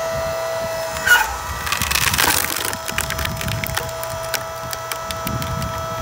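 Electric hydraulic log splitter running with a steady hum as its ram forces a log onto the wedge. The wood gives a sharp crack about a second in, then splinters loudly for about a second, followed by a run of small crackles as the log splits apart.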